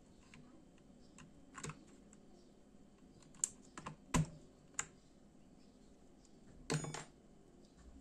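Sharp plastic clicks of a wire switch puller gripping and working a mechanical keyboard switch, an Outemu Blue, out of the keyboard. The clicks come singly in the middle, loudest about four seconds in, then as a short cluster near the end.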